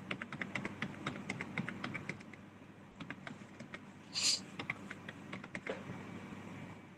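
Typing on a computer keyboard: a quick run of key clicks for about two seconds, then scattered keystrokes, with a short hiss about four seconds in.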